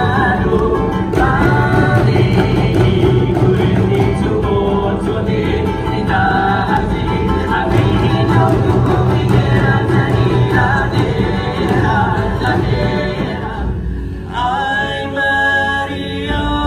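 A group of voices singing together over a steady beat of hand drums. About 14 seconds in the music drops off briefly, then a new song begins with long held sung notes.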